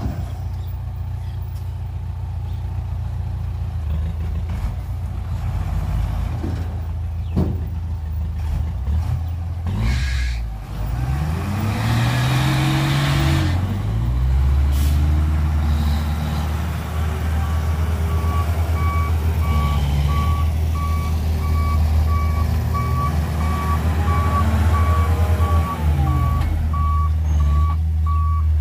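Small diesel dump truck running and revving up and down, with a short air hiss about a third of the way in. A reversing alarm starts beeping about two-thirds of the way through, in an even, steady pulse, about two beeps a second.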